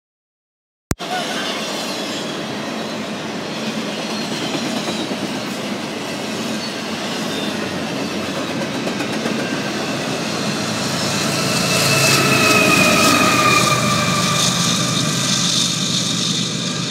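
CSX intermodal freight train rolling past: steel wheels clattering over the rail joints and the cars rumbling by. The sound cuts in suddenly about a second in. From about ten seconds in, a high squeal from the wheels rides on top for several seconds.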